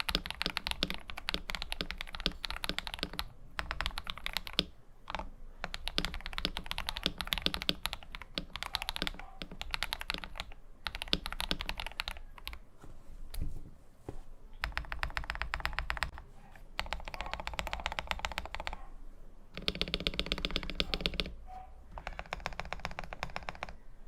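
Typing on a KBD67 Lite R3 mechanical keyboard with lubed KTT Kang White linear switches, tape-modded and with PE foam, and with lubed, holee-modded stabilizers. It is a fast, continuous stream of keystrokes, broken by short pauses several times.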